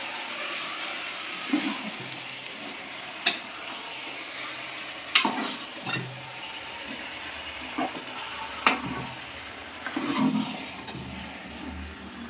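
Chicken and tomatoes sizzling in an open aluminium pressure cooker pot, stirred with a metal ladle that knocks and scrapes against the pot four or five times.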